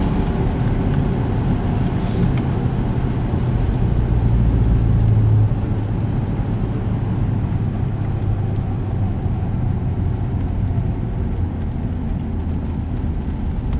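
Ford Shelby GT500's supercharged V8 running at low revs, heard from inside the cabin as a steady low drone; it eases off slightly about five and a half seconds in.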